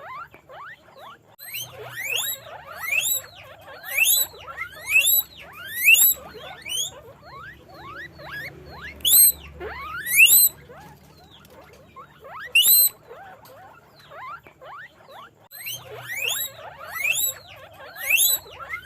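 Guinea pig squeaking: a string of loud, rising squeals, roughly one every second, with fainter squeaks between them. The squeals ease off briefly twice, in the middle and again a little later.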